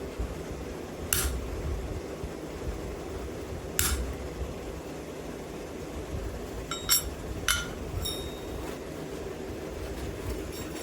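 Light hammer strikes on a steel tool, cutting a skull design into cold wrought iron. About six taps come at uneven intervals, and the later ones carry a brief high metallic ring. A steady fan-like hum runs underneath.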